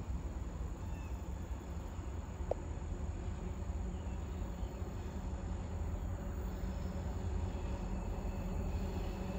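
Insects chirping over a steady low rumble of outdoor background noise. Near the end, faint steady tones come in as a distant train starts to be heard approaching.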